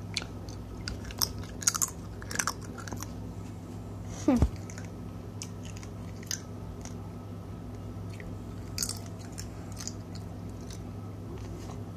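A person chewing and biting into crab close to the microphone, with scattered small crunchy clicks, over a steady low hum. About four seconds in, a short sound slides down in pitch.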